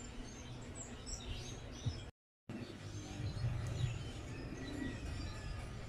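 Background ambience of a steady low hum with faint, scattered bird chirps. About two seconds in, the sound drops out completely for a moment.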